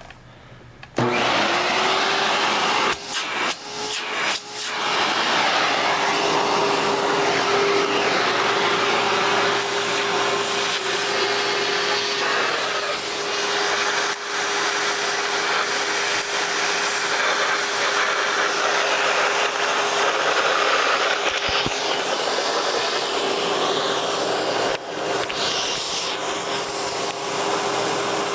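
Kenmore Whispertone 300 canister vacuum cleaner switched on about a second in, its motor spinning up to a steady whine over a loud airy rush. The level dips briefly a few times around three to five seconds in, then it runs steadily.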